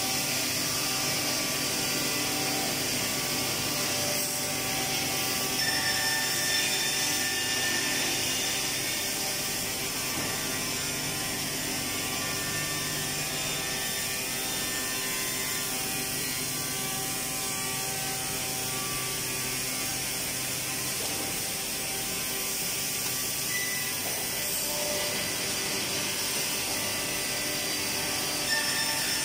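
Woodworking production-line machinery for solid-wood composite doors running steadily: the motors and conveyors of a panel-processing machine hum and hiss as door panels feed through onto roller conveyors.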